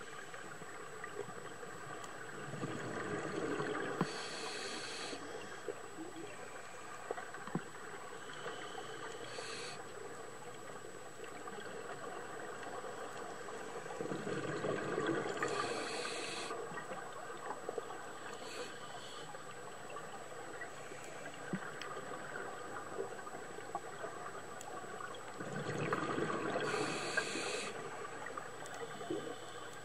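Scuba diver breathing underwater through a regulator, three slow breaths about ten seconds apart: each a rumbling, gurgling surge of exhaled bubbles followed by a brief hiss of the inhale.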